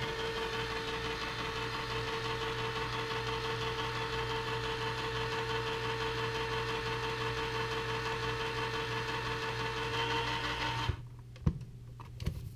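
Hamilton Beach electric can opener running steadily, turning a chili can and cutting off its lid, with a constant motor hum. The motor stops abruptly about eleven seconds in, followed by a few faint clicks.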